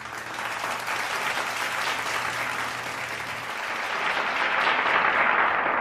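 Crowd applauding, swelling steadily and loudest near the end.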